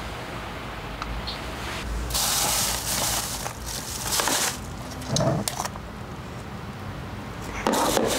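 A plastic bag rustles and bottles and containers are handled in a refrigerator, in several short bursts of crinkling and light knocks.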